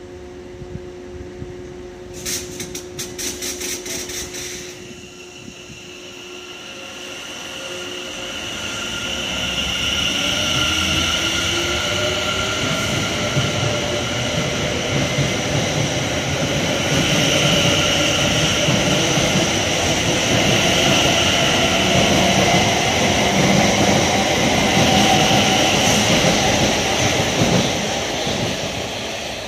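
South Western Railway Class 701 Arterio electric multiple unit pulling away from the platform. A steady hum is broken by a quick run of ticks about two seconds in. The traction motors then set up a rising whine, and the rolling noise of the carriages builds to a loud, steady rush as the train gathers speed past the platform.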